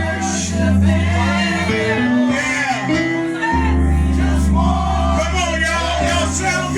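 Gospel music with singing voices over held keyboard chords and bass. The bass drops out briefly about two seconds in and comes back about a second and a half later.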